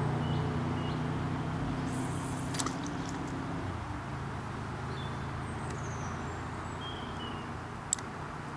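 A motor vehicle's engine droning steadily and slowly fading away. A few faint short bird calls and two sharp clicks, one near the middle and one near the end.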